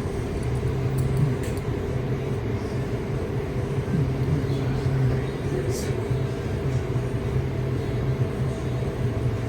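A steady low mechanical hum, with a couple of faint light clicks.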